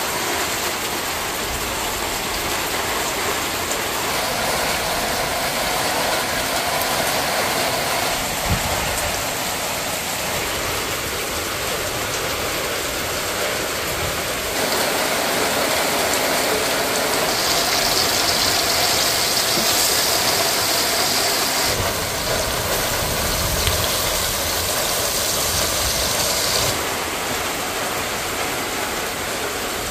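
Heavy rain falling steadily, with a stone pestle grinding and scraping chilies and shallots into sambal in a stone mortar.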